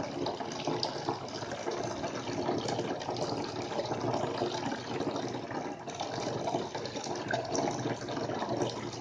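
Water running steadily over a small handmade corner waterfall fountain, a continuous splashing and trickling.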